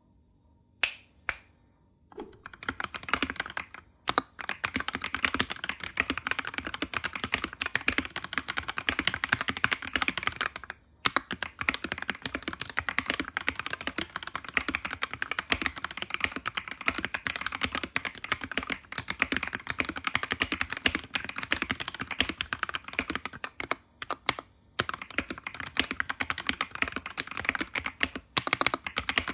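Typing test on a modded Voyager 68 mechanical keyboard: lubed Gateron Yellow KS9 switches with switch films and XDA keycaps, typed on fast and continuously. Two single key taps come about a second in, then steady rapid typing with a few brief pauses.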